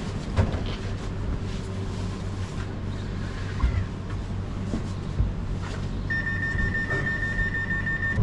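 Low rumbling hum inside a standing regional train, with a few sharp knocks. About six seconds in, a high electronic beeping tone starts and keeps going.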